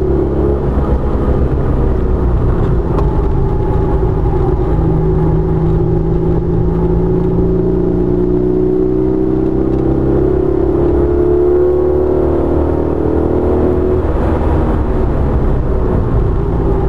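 Alfa Romeo GTV6's V6 engine under hard acceleration, heard from inside the cabin, its pitch climbing steadily through a long pull. About fourteen seconds in it breaks off and drops back to a lower pitch.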